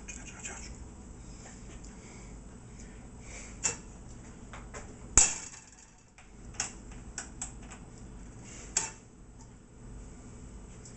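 Cookware and metal utensils clanking and knocking in a kitchen: a run of separate sharp clanks, the loudest about five seconds in.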